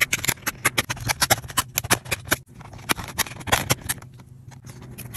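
Plastic snap clips of an HP laptop's case clicking and popping as a metal pry tool works along the seam and separates the keyboard deck from the bottom cover: a rapid, irregular run of sharp clicks.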